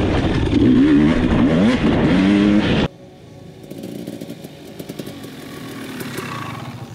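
Dirt bike engine heard close up from the bike, its pitch rising and falling as the rider works the throttle along the trail; it cuts off abruptly about three seconds in. After that a dirt bike is heard more faintly, slowly getting louder as it comes past.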